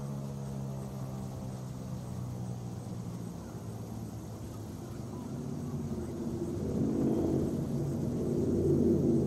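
Federal Signal 2001-130 rotating siren winding down after its noon blast: a low, slowly falling drone that grows louder again near the end as the horn swings back round.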